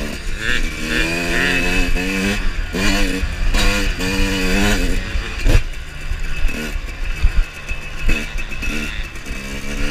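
Two-stroke Suzuki RM motocross bike's engine revving up hard several times in quick succession, heard from on the bike with wind rush. The revs fall away around the middle, with a sharp knock, then build again near the end.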